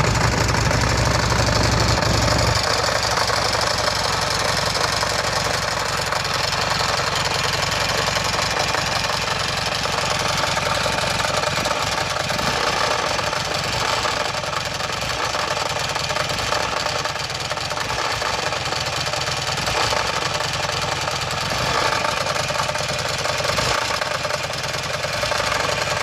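Buell Ulysses 1203 cc air-cooled V-twin idling just after starting, with a knocking noise from the engine. It runs heavier for the first couple of seconds, then settles to a steady idle.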